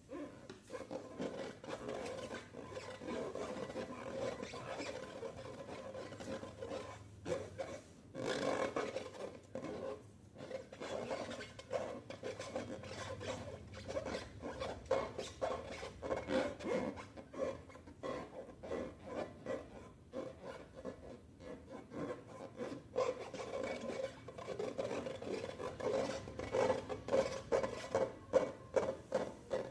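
Slime being mixed and worked by hand, a continuous run of sticky rubbing and scraping strokes. The strokes grow louder and come about two a second near the end.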